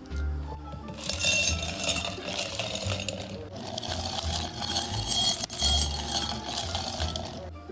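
Liquid poured from a plastic jug over ice cubes in a glass mug, the ice crackling and clinking against the glass. It comes in two pours with a brief break about three seconds in.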